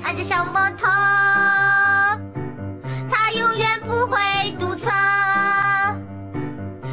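Background music: a children's-style song with a high singing voice holding long notes over a bass line.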